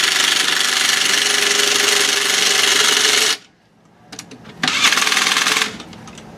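Impact wrench hammering on the truck's wheel lug nuts in a long burst of about three seconds. A second, shorter burst comes near the end.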